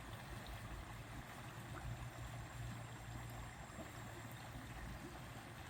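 Faint, steady rush of flowing creek water, with a low rumble underneath.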